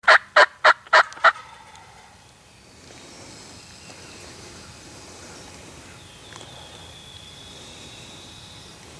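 A turkey gives a quick loud series of five calls, about three a second, lasting just over a second. Faint high bird calls and outdoor ambience follow.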